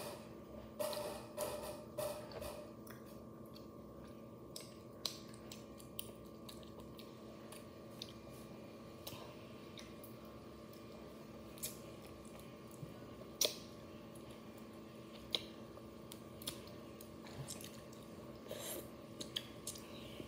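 Close-up mouth sounds of a girl chewing and sucking on something held in her mouth: scattered wet clicks and smacks, a few sharper ones in the middle, over a steady low hum.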